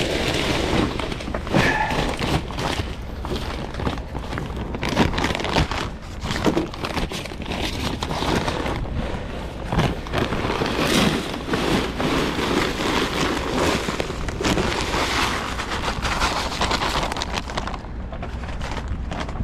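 A salt spreader running and throwing rock salt, with a dense patter of many small ticks, under heavy wind noise.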